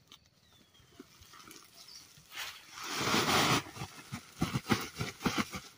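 Dry leaves and twigs rustling and crackling as they are gathered by hand into a woven plastic sack: a long rustle about three seconds in, then a quick run of sharp snaps and crackles near the end.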